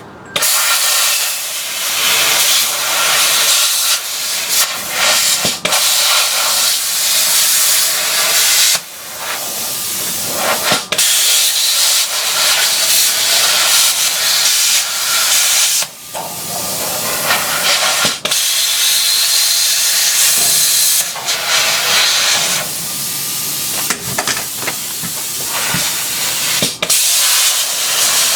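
Pneumatic cut-off tool, driven by an air compressor, running on metal in runs of several seconds with short pauses. It makes a loud, hissing noise with little low end.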